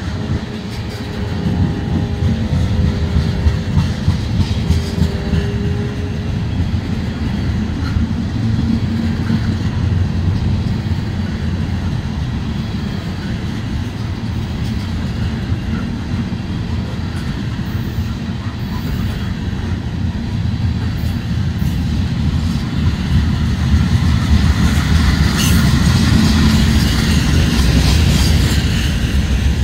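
Loaded ethanol tank cars of a Norfolk Southern freight train rolling past close by. Their steel wheels make a steady heavy rumble with clickety-clack over the rail joints, growing louder in the last few seconds.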